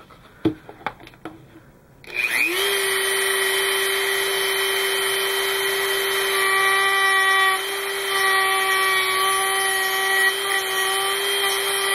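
A few light handling clicks, then about two seconds in a Dremel rotary tool fitted with a small cutting wheel spins up to a steady high whine. From about halfway, higher tones come and go over it in stretches as the wheel shaves down a part inside the plastic model's engine.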